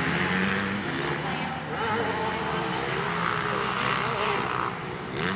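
Motocross dirt bike engines racing around the track, their pitch rising and falling as riders work the throttle and shift.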